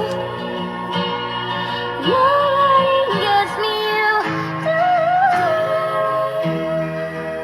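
Music: a song with a sung melody over guitar and a steady accompaniment.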